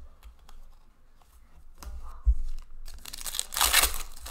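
Foil wrapper of a hockey card pack torn open by hand: a crinkly rip lasting about a second near the end. Before it, soft clicks of cards being handled and a short low bump about two seconds in.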